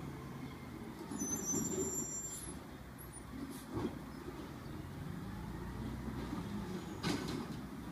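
Distant garbage truck's diesel engine running steadily, with a brief sharp knock about four seconds in and another near the end.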